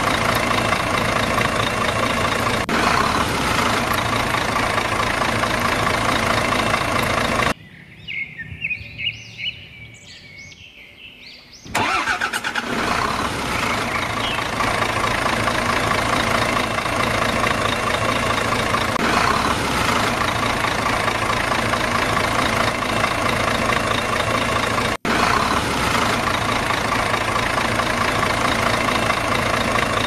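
Steady vehicle engine running, an engine sound effect laid over toy vehicle play. About seven seconds in it cuts off abruptly for about four seconds, leaving birds chirping, then comes back; a split-second dropout near the end.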